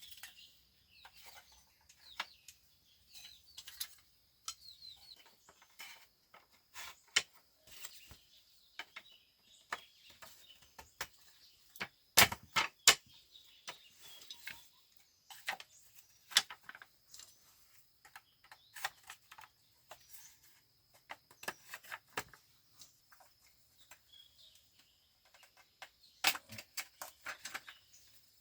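Irregular sharp knocks and clicks, a cluster of louder ones about twelve seconds in and another near the end, over birds chirping and a faint steady high hum.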